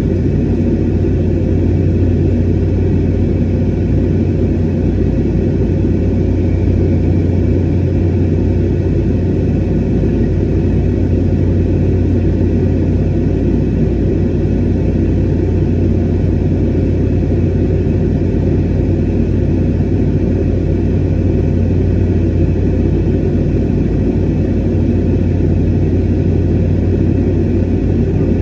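Airliner cabin noise in flight: a steady, even low roar of the jet engines and airflow, with no change.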